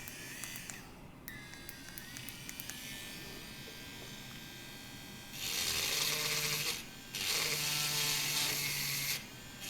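Cordless micro rotary carving tool spinning up and running with a faint whine, then its diamond cut wheel grinding into unfired metal clay in two passes a little over half way through, a coarse hiss over a low hum, to remove a lot of material quickly.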